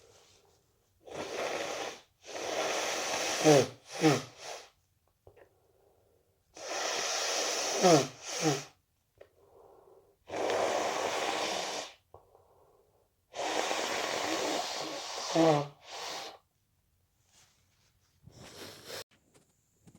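A person with a cold blowing their nose hard: about four long, forceful blows of a second or two each, with pauses between them. Several end in a short voiced grunt that drops in pitch.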